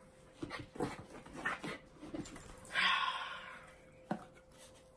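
Small dog whimpering: several short sounds, then a longer one about three seconds in.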